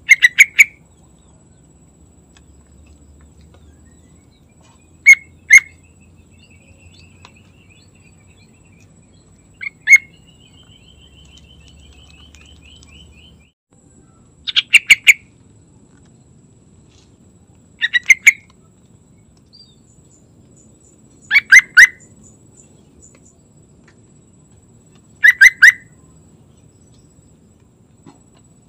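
Yellow-vented bulbul (trucukan) singing short phrases of a few quick, loud notes, one about every three to four seconds. A fainter, higher trill from another bird runs twice in the first half.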